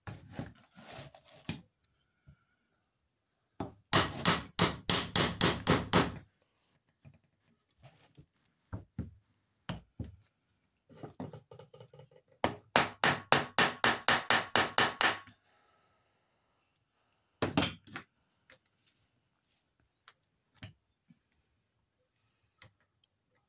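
Soft-faced mallet tapping bushings into a metal crossbow's limb pivot block, in three runs of quick blows about four or five a second with pauses between. A single harder knock follows, then a few light clinks of small metal parts being handled. The bushings are a tight fit and are being knocked home.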